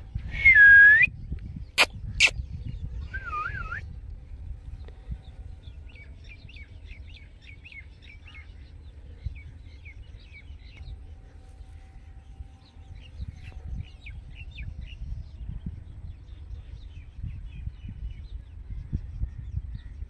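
Rose-ringed parakeet giving a loud, clear whistled call, then two sharp clicks and a short wavering call a couple of seconds later. After that, faint rapid twittering of small birds goes on over a steady low wind rumble on the microphone.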